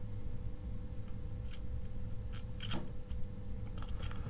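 Scattered light clicks and scrapes of a soldering iron tip on a small circuit board and its component leads, as transistors are pushed down lower on the board. A steady low hum runs underneath.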